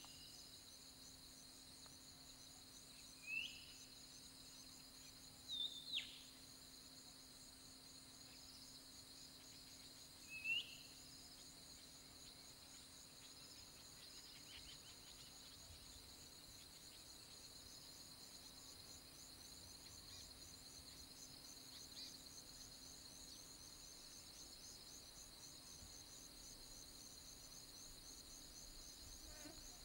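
Faint insect chorus, a steady high-pitched drone with a fast pulsing trill. A few short rising bird chirps come in the first ten seconds or so.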